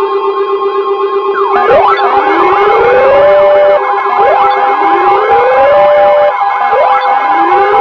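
Siren wails rising in pitch about every two and a half seconds, several overlapping, over a steady electronic alert tone. Before they start about a second and a half in, only the steady tones and a fast warble are heard.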